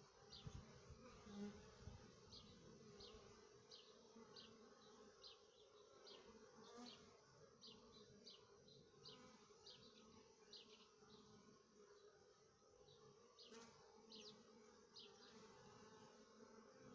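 Faint, steady buzzing hum of honey bees flying around a hive entrance. A series of short, high chirps repeats about twice a second over it, and a few low bumps come in the first two seconds.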